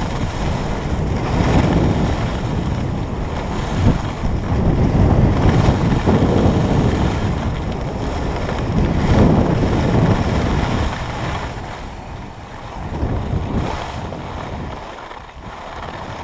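Wind buffeting the microphone of a camera worn while skiing downhill, mixed with the hiss and scrape of skis on packed snow, swelling and easing with the turns. It dies down over the last few seconds as the skier slows to a stop.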